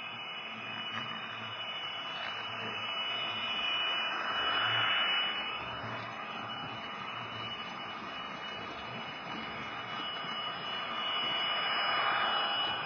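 Model train running on the track: a steady rumble of the motor and wheels that swells louder twice as the train passes close by, about five seconds in and again near the end, with a thin steady high whine throughout.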